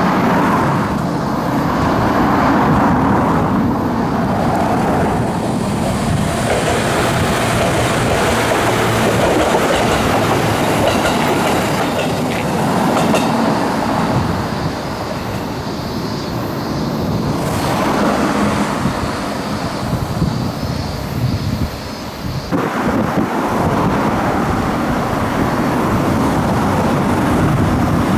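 Fujikyuko Line electric train running along the track, a continuous rumbling noise of wheels and motors. The sound changes abruptly about 22 seconds in.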